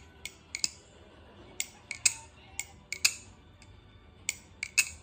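A cheap clone balisong (butterfly knife) being flipped, its handles clicking as they swing open and shut. The clicks are sharp and come at irregular spacing, about a dozen of them, some in quick pairs.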